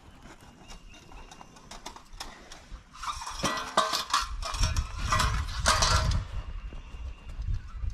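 Tent poles clattering and clinking as they are handled and shaken out, loudest from about three to six seconds in.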